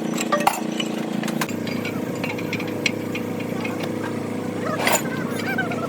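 An engine running steadily, with sharp clinks and knocks over it and a voice near the end.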